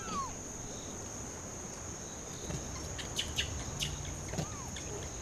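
Insects droning steadily in one high tone, with a few short falling squeaks and a cluster of sharp ticks over it about three to four seconds in.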